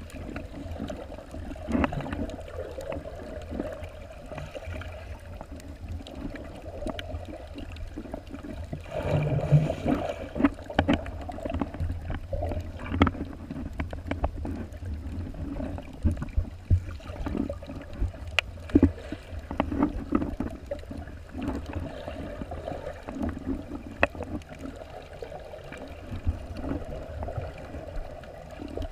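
Underwater sound heard through a camera's waterproof housing: a steady low rumble with gurgling water and many scattered clicks and crackles, and a louder gurgling rush about a third of the way in.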